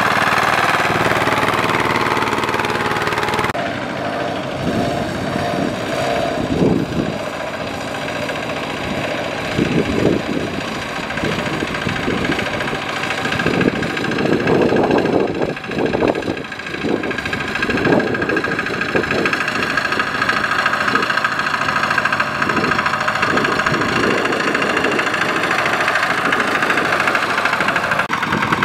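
Kubota RT120 single-cylinder diesel of a two-wheel walking tractor running under load while pulling a loaded trailer through mud. The engine note changes abruptly about three and a half seconds in, then surges irregularly through the middle before settling steady again.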